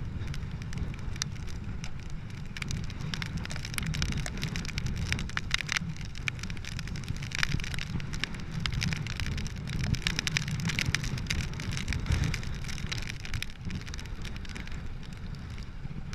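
Wind rumbling on the microphone of a bicycle ridden hard in the rain, with many irregular raindrop ticks spattering on the mic.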